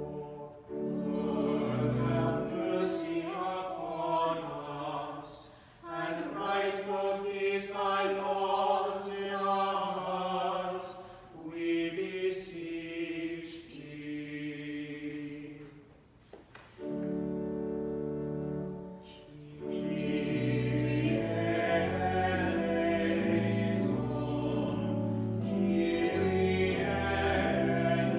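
Choir singing a liturgical response with organ accompaniment, in several phrases with brief pauses between them.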